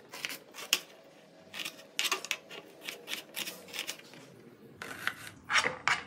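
Kitchen knife slicing an onion on a cutting board: short, sharp knocks of the blade hitting the board at an uneven pace, about two or three a second.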